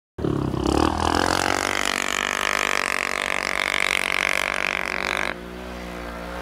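ATV engine running at high revs, a steady pitched drone, that eases off with a drop in level about five seconds in.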